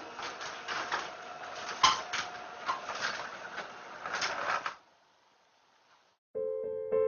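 A dense rattling, clattering noise with frequent sharp clicks and one loud knock about two seconds in, cutting off abruptly about five seconds in. Piano music starts near the end.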